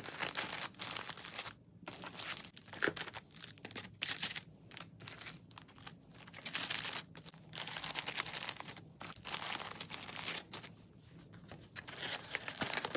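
Cellophane cookie bags and crinkle-cut paper shred crinkling as bagged cookies are handled and pressed into a box. The crinkling comes in irregular bursts with short pauses and eases off near the end.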